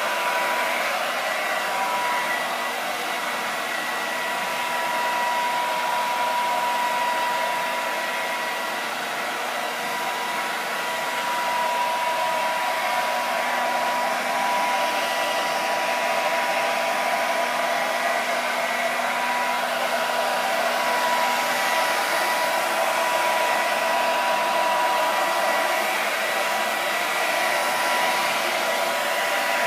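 Hand-held hair dryer blowing steadily, a whine running over the rush of air, aimed at the frame's fresh top coat of paint to dry it and bring out the crackle glaze.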